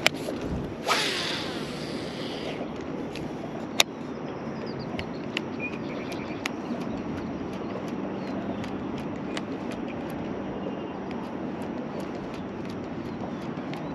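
A cast with a baitcasting reel: about a second in, the spool whirs as line pays out, falling in pitch as it slows. A sharp click follows near four seconds, then light irregular ticking over steady wind and water noise as the topwater lure is worked back.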